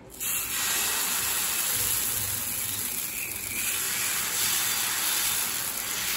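Wheat uttapam batter sizzling on a hot iron dosa griddle as it is poured from a ladle and spread, a steady hiss that starts abruptly about a quarter-second in.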